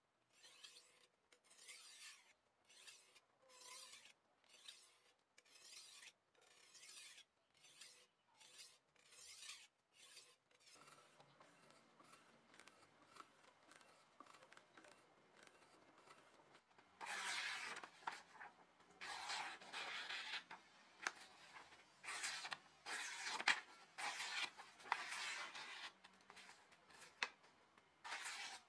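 Steel knife blade stroked repeatedly against a leather strop clamped in a vise, honing the edge: rhythmic rubbing strokes. The strokes are soft and come about one and a half a second at first; past the middle they turn longer and louder, roughly one a second.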